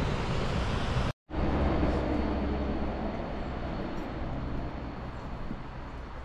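Steady rushing of river water in a rocky gorge, broken by a brief silence about a second in, then going on as a duller rush with a low rumble that slowly fades.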